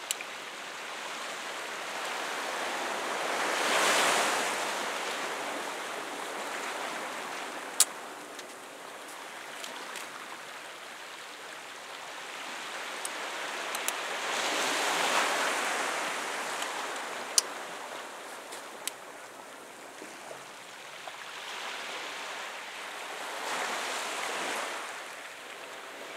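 Small sea waves washing onto the shore, the surf swelling and fading three times about ten seconds apart, with a few sharp clicks in between.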